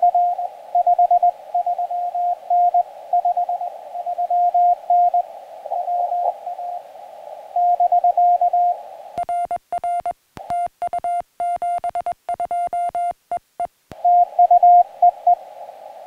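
Morse code (CW) on a portable ham radio: a station's dits and dahs heard as a beeping tone over receiver hiss. About nine seconds in, the operator's own sending takes over as a cleaner sidetone with a click at each key-down. Near the end the hissy received signal returns for a few more characters.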